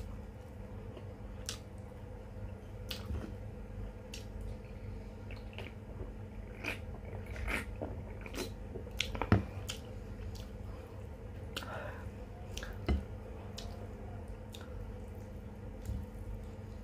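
Close-miked eating sounds of someone chewing a mouthful of chicken and rice, with scattered small clicks and smacks. A steady low electrical hum runs underneath.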